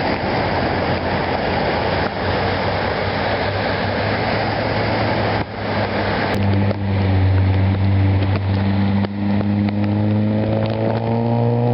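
A steady rushing noise. About five seconds in, a motor vehicle's engine hum takes over, and its pitch rises toward the end as it speeds up.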